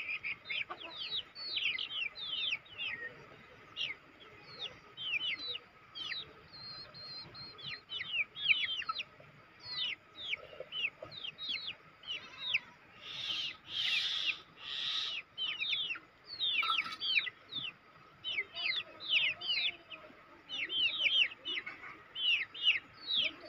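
Many short, high chirps sweeping downward in quick succession, from several small birds or chicks at once. About halfway through come three short noisy swishes.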